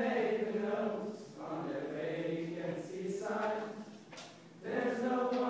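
A group of young men singing together in a serenade, in phrases with short breaths about a second in and about four seconds in, with an acoustic guitar accompanying.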